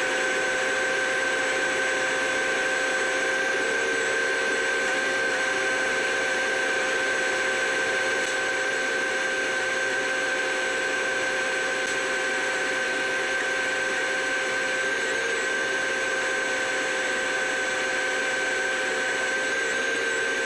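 Combine harvester running steadily while cutting wheat, a constant high mechanical whine over an even machine hum.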